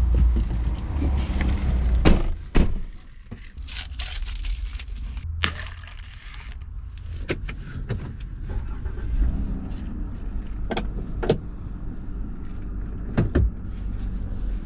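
Car sounds: a steady low rumble with a dozen or so sharp clicks and knocks scattered through it.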